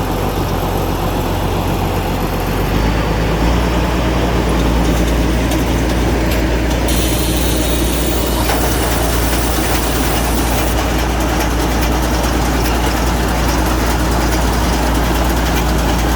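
Straw baler's engine running steadily with a low drone, which grows stronger about three seconds in.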